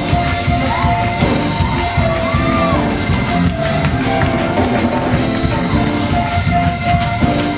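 Loud live gospel praise-break music from a church band, with a drum kit keeping the beat.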